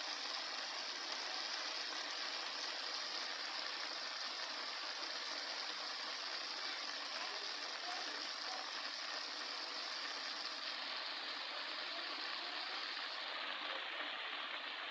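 Steady sizzle of vegetables cooking in a pot over a high flame.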